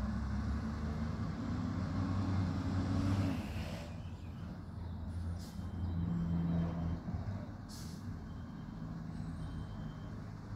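Garbage truck's diesel engine running, louder twice as it works along the street. There is a long hiss of air brakes that cuts off about four seconds in, and two short hisses later.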